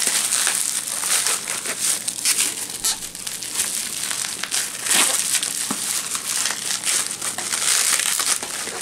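Plastic bubble-wrap mailer crinkling and crackling continuously as it is handled and worked open by hand, with a cardboard box inside.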